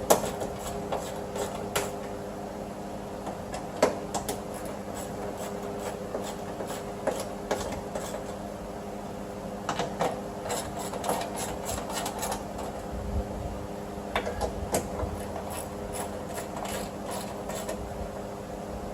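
Hand tools tightening the new window regulator's mounting bolts inside the car door: scattered sharp metal clicks and taps, in quicker runs about ten and sixteen seconds in, over a steady low hum.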